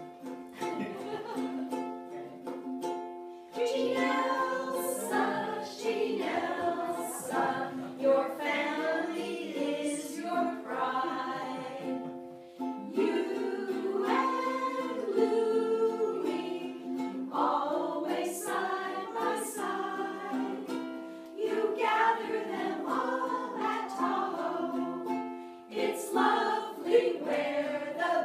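Small amateur women's chorus singing a song together, accompanied by a strummed ukulele. The singing comes in phrases with short breaks between them.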